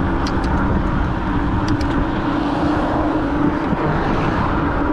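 Wind rushing and buffeting over the camera microphone on a moving electric bike, with road traffic and a steady low hum beneath it. A few short clicks come in the first two seconds.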